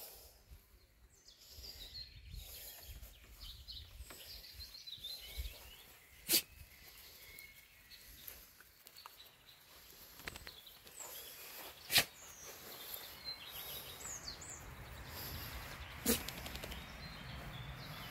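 Faint outdoor ambience with scattered short, high chirps and three sharp clicks a few seconds apart.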